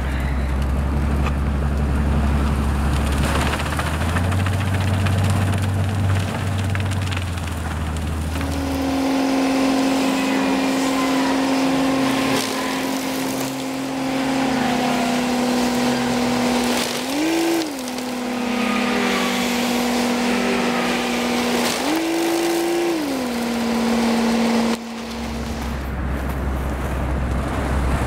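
Railway rotary snow plow's machinery running under load. A deep low drone is heard at first. About a third of the way in it changes abruptly to a steady humming whine, which rises briefly in pitch twice. The deep drone returns near the end.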